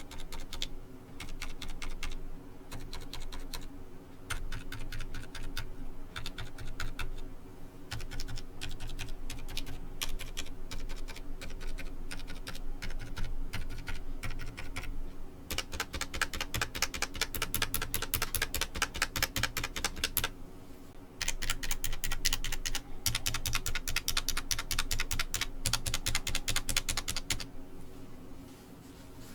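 Typing on a Ducky ONE 2 keyboard with spray-lubed Cherry MX Silent Red switches: keystrokes in quick runs with brief pauses. About halfway through, the long stabilized keys are pressed. Their Cherry stabilizers are greased with Super Lube and fitted with O-rings, and the uploader finds the O-ring sound bothersome.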